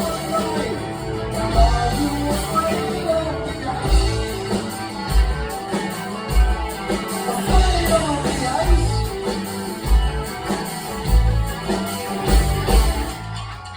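Live rock band playing, with electric guitar, bass and a regular kick-drum beat, and a sung or lead guitar melody line over it.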